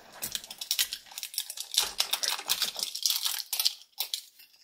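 Crinkly plastic wrapper being torn and peeled by hand off a Mash'ems toy capsule: a dense run of crackles that thins out near the end.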